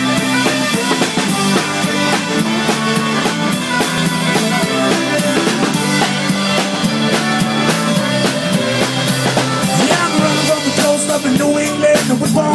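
Live band playing an instrumental passage, a drum kit keeping a steady beat under sustained pitched instruments.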